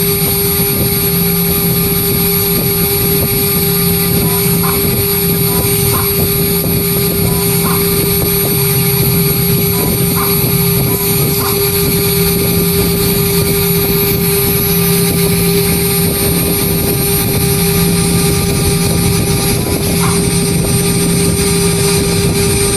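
CNC engraving machine's spindle running steadily while its bit engraves lettering into aluminium composite panel (ACP): a loud, steady whine with several held tones over cutting noise.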